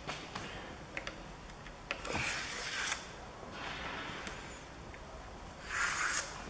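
A screwdriver scraping dirt out of the windscreen trim channel: a scrape lasting about a second, about two seconds in, and a shorter one near the end, with a few light clicks between.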